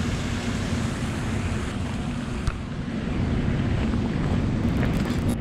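Steady rumble of a running hydroelectric power station, a low hum over rushing water, with wind buffeting the microphone. A single light click about halfway through.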